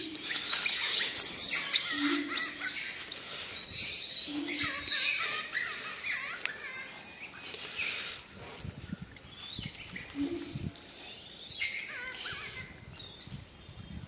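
Rapid high-pitched squealing and chirping calls, dense and loud in the first few seconds, then thinning out. A short low hum recurs a few times.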